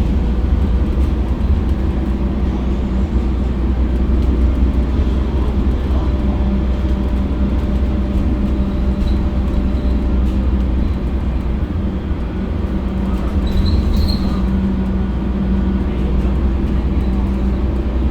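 Mercedes-Benz OC500LE diesel bus running, a steady low drone of engine and rumble with no sudden events.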